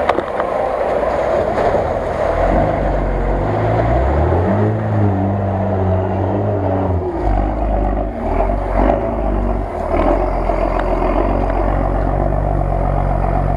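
Modified Jeep Cherokee off-roader's engine working under load as it crawls on big mud tyres through mud and snow. The revs climb about four seconds in, drop back about seven seconds in, then hold steady.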